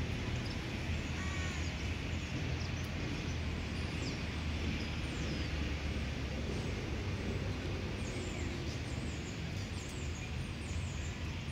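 A few brief crow calls over a steady low background rumble, from a flock of crows feeding on the grass.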